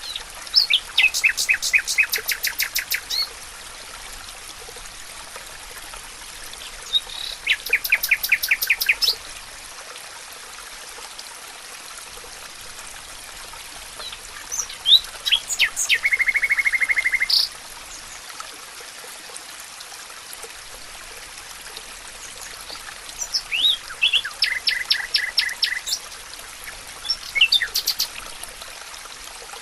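Songbirds singing in the forest. There are about five phrases of rapid repeated high chirps and trills, including a fast buzzy trill about halfway through, with short gaps between phrases. A steady background hiss runs underneath.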